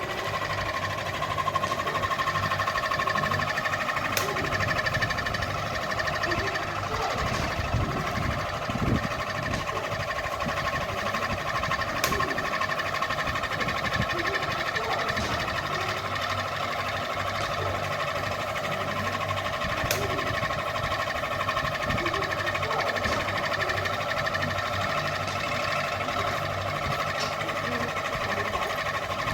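Ceiling fan running with a steady motor hum and a higher steady whine, with a few faint ticks here and there.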